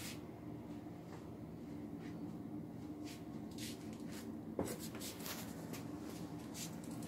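Weight-driven grandfather clock ticking, roughly once a second. There are extra light clicks and one louder knock about four and a half seconds in, which sound like the clock being handled or bumped.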